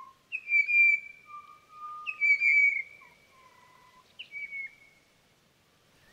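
Whistled bird calls: clear notes alternating between a low and a higher pitch. The higher note comes three times, each slightly falling, and the last one is shorter and quieter.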